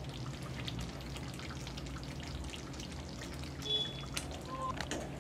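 Thick spinach gravy simmering in a pan, with many small bubbles popping over a low steady hum. A brief high ping sounds about three and a half seconds in.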